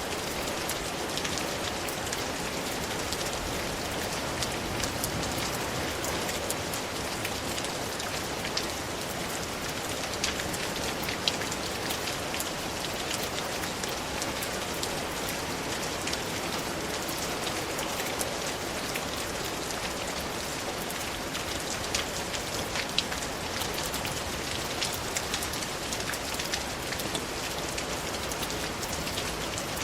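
Steady rain falling, an even hiss dotted with the ticks of individual drops striking a surface, a few louder drop hits standing out now and then.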